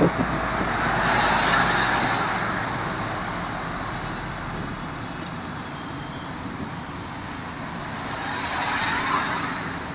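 Steady road traffic noise that swells and fades twice, about a second in and again near the end, as vehicles pass.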